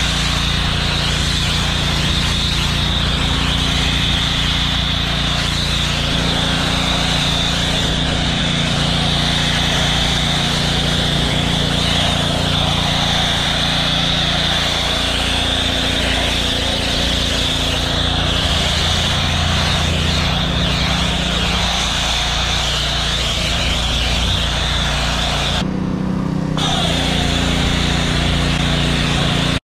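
Pressure washer running steadily, with the hiss of its foam cannon spraying thick snow foam onto a truck. The spray cuts out for about a second near the end while the machine keeps running.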